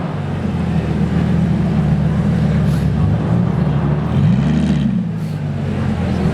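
Lamborghini Gallardo Spyder's V10 engine running steadily at low revs, with one short rev that rises and falls about four and a half seconds in.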